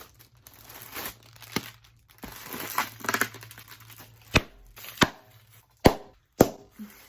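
Plastic and paper packing material rustling and crinkling as a shipping box is unpacked by hand, with four sharp clicks or knocks in the second half.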